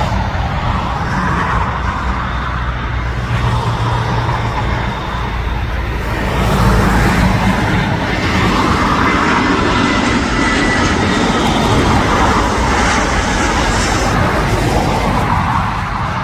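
Jet airliner engine noise: a steady, loud rush with a deep rumble underneath.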